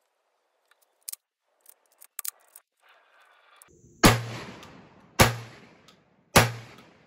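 A few light clicks and knocks as the shotgun is picked up and shouldered, then three shots from a Stoeger M3000 12-gauge semi-automatic shotgun a little over a second apart, each with a decaying echo. The shotgun is firing heavy hunting loads to break in its action.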